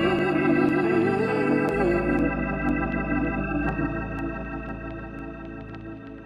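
Background music of held, organ-like chords. A wavering melody line over them stops in the first two seconds, then the chord slowly fades out.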